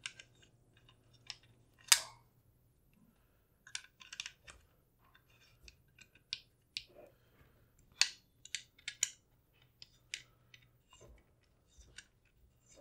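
Irregular small metallic clicks and taps of a hex key working a screw on the handguard of an ATI Bulldog bullpup shotgun being reassembled, hand tight. There is a sharper click about two seconds in and a quick run of clicks about eight seconds in.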